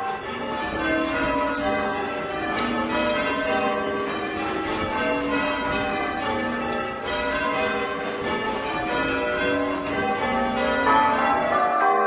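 Church tower bells rung full-circle in changes by a band of ringers: a steady, unbroken stream of bell strikes, each bell sounding in turn, with the tones overlapping as they ring on.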